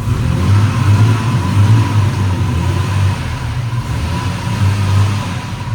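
Mercedes 190E's turbocharged M103 straight-six running on the move, its low engine note swelling and easing with the throttle.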